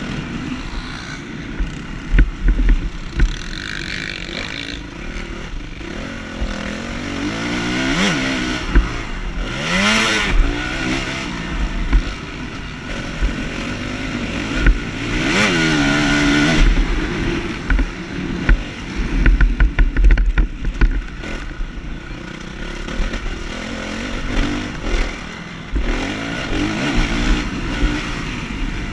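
Motocross bike engine at racing speed, its revs repeatedly climbing and dropping back as the rider works the throttle, heard from a camera on the bike. Short knocks from the rough track and gusts of wind on the microphone come and go.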